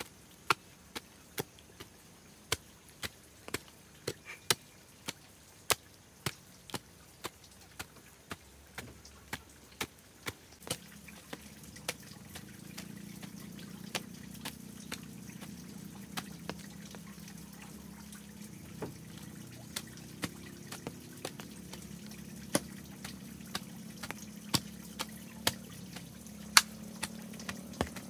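Hand hoe chopping into damp garden soil: sharp strikes about two a second, becoming less regular later. A low steady hum comes in about a third of the way through.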